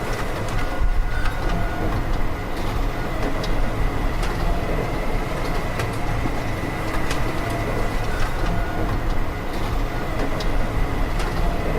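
Steady mechanical running noise of machinery, with a thin, steady high whine and light clicks scattered throughout.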